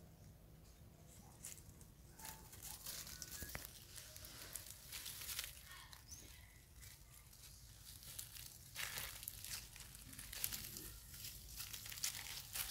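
Dry fallen leaves crackling and rustling as monkeys move and forage in the leaf litter: irregular light crackles, growing busier about halfway through.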